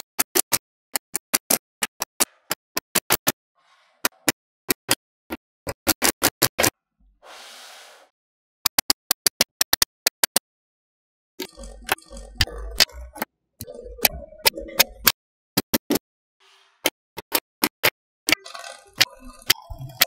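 Small metal magnetic balls snapping together as strips and slabs of them are pressed into place: a run of sharp clicks, singly and in quick bunches. Halfway through and again near the end, a few seconds of rattling and scraping as rows of balls are pushed and dragged along the structure.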